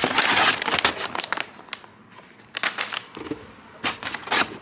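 Paper packaging crinkling and rustling in a cardboard parcel box as a hand rummages through it, in several separate bursts, the longest and loudest in about the first second.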